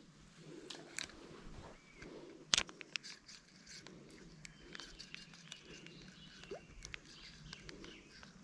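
Small sharp clicks and soft rustling from a spinning reel and its line being handled, with one louder click about two and a half seconds in.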